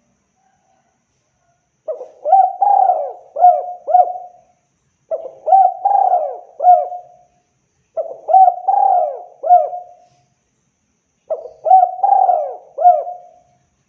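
Spotted dove (tekukur) cooing: four repeated coo phrases about three seconds apart, each a short run of hooting notes.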